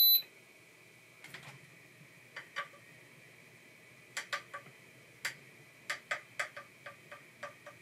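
Sparse, irregular light clicks and ticks from a robot dog's 3D-printed plastic gear-driven legs as their brushless motors move them into position. A high steady electronic beep cuts off just as it starts.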